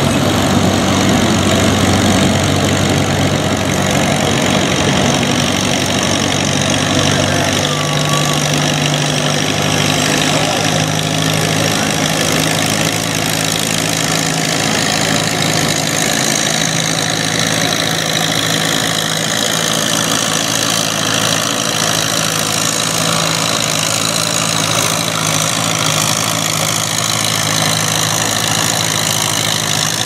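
Farmall farm tractor's engine running steadily under load as it pulls a weight-transfer sled; its note changes about eight seconds in.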